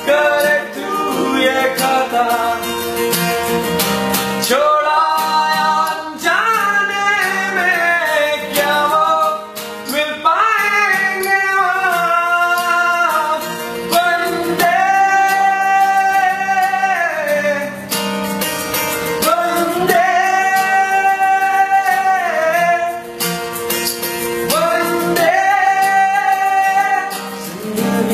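Live band music: a male voice singing long, held lines over acoustic guitar.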